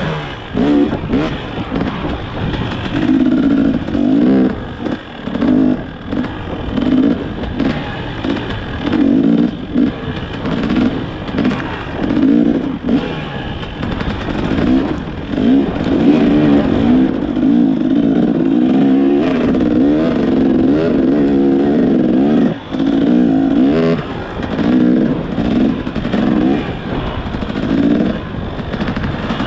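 Dirt bike engine being ridden off-road, revving up and falling back again and again as the throttle is opened and closed.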